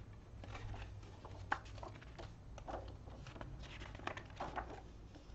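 Soft, scattered rustling and light taps of paper comics, posters and glossy sleeves being handled and laid down, over a low steady hum.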